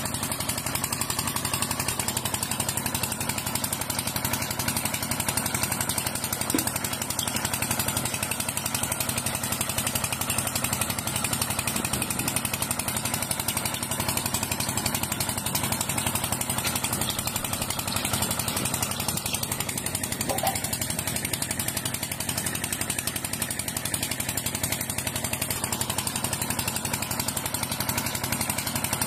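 Small motor running steadily with a fast, even buzz.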